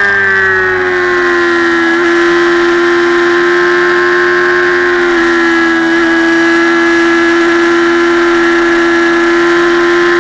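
Motorcycle engine running hard at high revs, a steady high-pitched drone that sags slightly in pitch over the first second or two and again about five seconds in, then holds steady.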